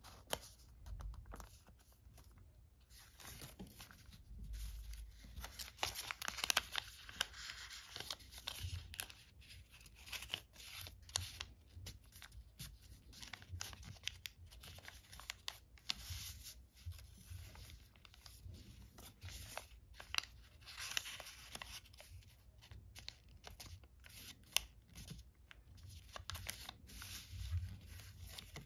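Origami paper rustling and crinkling as hands slide and tuck folded paper units into one another, an irregular run of short scrapes and crinkles.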